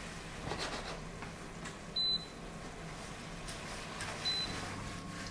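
Two short, high electronic beeps from a glass cooktop's touch controls, the first about two seconds in and a shorter, fainter one a couple of seconds later, over a faint steady hum.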